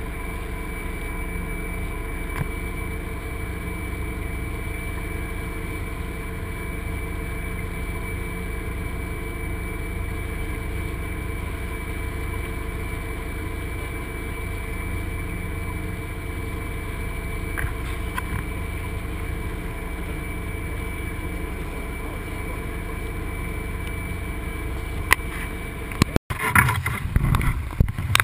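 Steady low rush of wind and water on a Dufour 45e sailing yacht under way, with a faint steady whine over it. Near the end it cuts to louder, gusty buffeting as the boat heels and throws spray.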